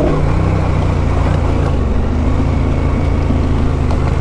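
Adventure motorcycle engine running steadily while climbing a steep dirt trail, with even wind and road noise.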